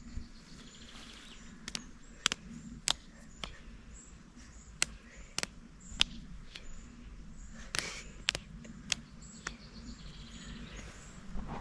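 Runs of sharp, evenly spaced ticks, about one every 0.6 seconds in groups of four, over faint outdoor background noise and a low hum.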